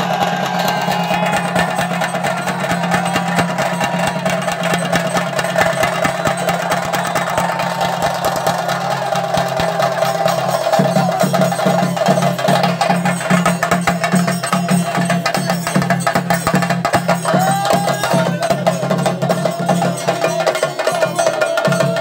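Chenda drums played fast in a dense, unbroken roll of stick strokes, the temple drumming that accompanies a theyyam, with a held pitched tone sounding above the drums.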